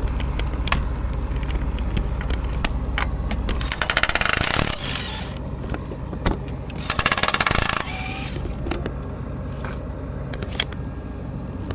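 Low steady machine hum, stronger in the first few seconds, under scattered metallic clinks and scrapes from work on a combine header's sickle knife, with two bursts of rapid metallic clicking, about four and seven seconds in.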